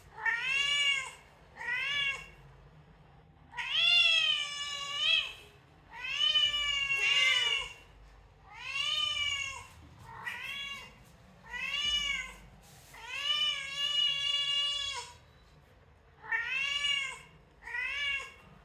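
Recorded cat meows played through a laptop's speakers, about a dozen in a row with short pauses between them. Each call rises and falls in pitch, and a few are drawn out longer.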